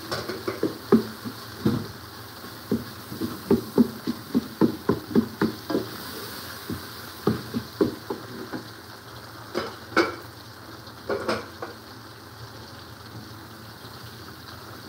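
Chopped tomatoes and onions frying in an aluminium pot with a steady sizzle, while a wooden spoon stirs them and knocks against the pot in quick strokes. The knocking stops after about eleven seconds, leaving only the sizzle.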